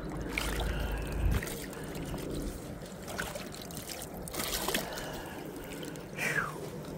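Shallow lake water splashing and trickling as a stringer of live bluegills is dipped and let back into the water among rocks, with a few small knocks. A low rumble is heard during the first second and a half.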